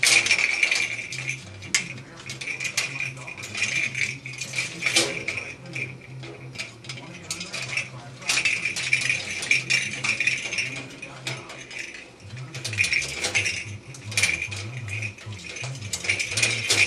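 A pet parrot playing with its toys: small hard objects rattling and clinking in quick, irregular clicks, with louder knocks every few seconds.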